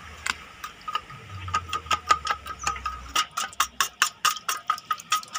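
Metal spoon stirring spice paste in a stainless steel bowl, clinking against the bowl's side in a quick, steady rhythm of about four to five ticks a second that gets louder and more regular after a second or so, with the bowl ringing faintly under the strokes.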